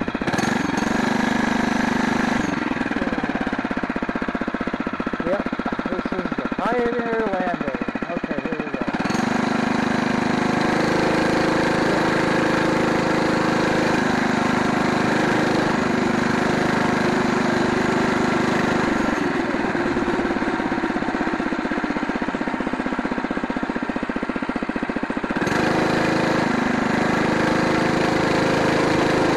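Phatmoto Rover motorized bicycle's small single-cylinder four-stroke gas engine running under way. It speeds up about nine seconds in, eases off a little before twenty seconds, and picks up again near the end.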